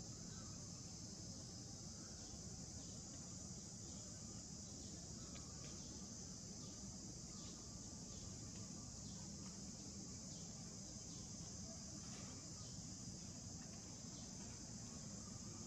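Steady high-pitched drone of an insect chorus, with faint short chirps repeating about once a second through it.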